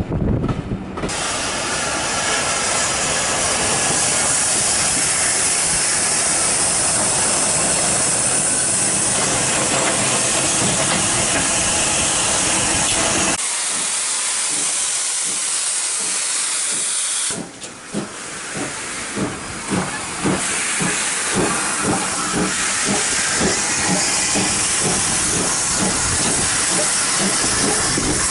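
Steam locomotive hissing loudly and steadily, then pulling away with a regular chuff of its exhaust beats under the hiss.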